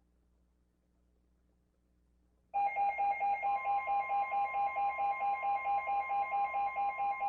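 Near silence with a faint hum, then about two and a half seconds in an emergency weather-alert tone starts: a loud electronic tone pulsing about four times a second, joined a second later by a steady higher tone.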